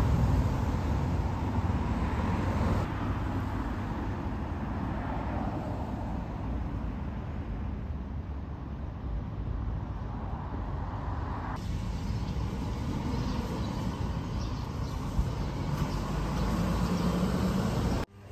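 Steady road traffic noise of a city street, with cars passing. The background changes abruptly about three seconds in and again partway through.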